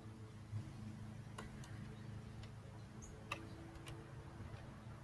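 A handful of light, sharp clicks at irregular intervals over a faint, steady low hum.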